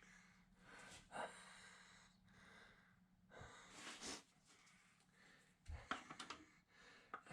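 Faint breathing of a person at work, a couple of heavy breaths, followed near the end by a quick run of small clicks and taps.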